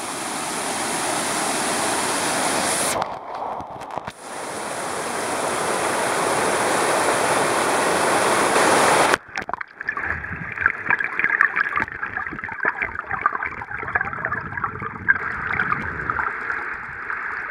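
Water rushing past a submerged camera as a spinner lure is retrieved: a steady hiss that slowly grows louder, broken off briefly about three seconds in. About nine seconds in it cuts suddenly to muffled underwater gurgling with small crackles and clicks.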